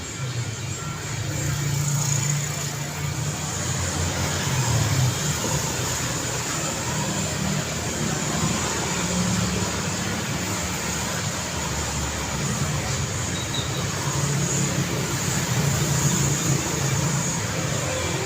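Road traffic: cars passing with a continuous hum of engines and tyres, the engine rumble swelling and easing as vehicles go by.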